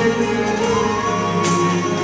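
Background music: sustained melodic notes over a steady bass line. One high note slides up about half a second in and is held.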